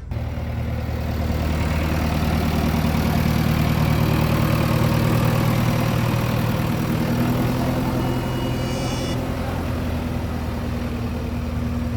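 Diesel engine of a Tata Hitachi earthmoving machine running steadily at a low, even pitch, with a brief high-pitched sound about eight seconds in.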